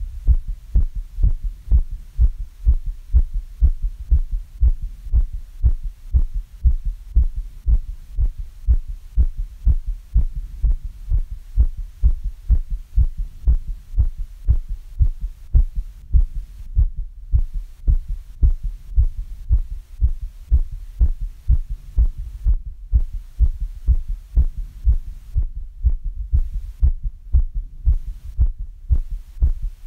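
A human heartbeat, a steady rhythm of low thumps, from a heart recovering after exercise.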